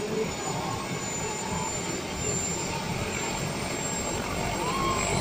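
Light turbine helicopter running on the ground with its main rotor turning slowly: a steady rushing noise with a faint, high, steady whine.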